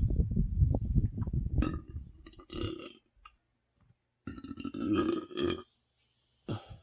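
A person's deep burps from a very full stomach: a long, loud low burp that fades out about three seconds in, then after a short pause a second burp of about a second and a half, and a short one near the end.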